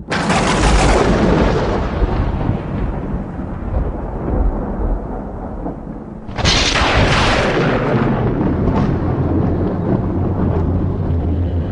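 Thunder sound effect: a sudden loud crack of thunder that rumbles away over several seconds, then a second clap about six and a half seconds in that fades the same way.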